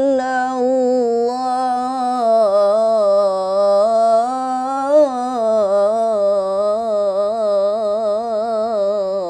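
A solo male voice in melodic Qur'an recitation (tilawah), holding one long ornamented note with rapid wavering turns. It is the drawn-out close of the phrase 'wa man yaghfiru adh-dhunuba illa Allah'. The pitch sinks slowly, with a brief rise about five seconds in, and the note stops abruptly at the end of the breath.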